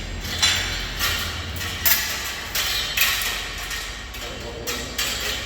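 Steel scaffolding parts being knocked loose and handled during dismantling: irregular sharp knocks and clanks, the strongest four about a second apart, over a low steady hum.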